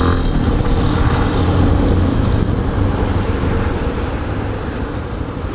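Yamaha XTZ 250 Ténéré's single-cylinder engine running under way, mixed with wind rush over the camera's microphone. The sound eases off a little in the second half.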